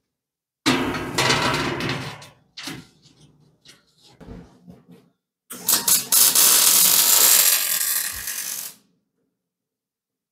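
Metal knocking and scraping as a heavy steel hatch frame is handled, then a MIG welder's arc crackling steadily for about three seconds before it stops abruptly.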